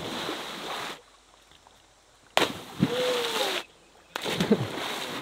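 Bodies jumping into a river pool: three big splashes of churning water, one dying away about a second in, another about two and a half seconds in, and a third near the end.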